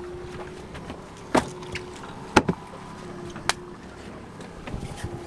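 Boat engine humming steadily at trolling speed, under several sharp hard knocks, the loudest about two and a half seconds in, from a king salmon being put into a hard plastic cooler and the cooler lid shutting.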